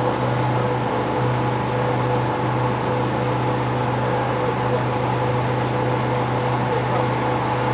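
Motorboat engine running steadily while under way, a constant low drone with a faint steady whine above it.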